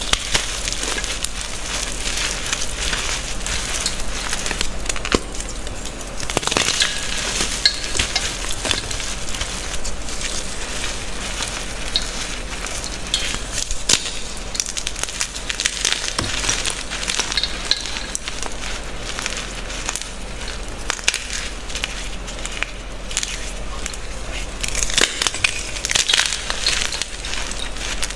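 Hands squeezing and crumbling blocks of reformed gym chalk, a dense, crisp crunching and crackling of powder and chunks breaking up, busiest about six seconds in and again near the end.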